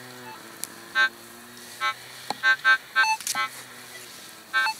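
Minelab CTX 3030 metal detector giving about six short tonal beeps as it sweeps over the ground, sounding off on targets. Under the beeps a small gas engine hums steadily with slowly shifting pitch.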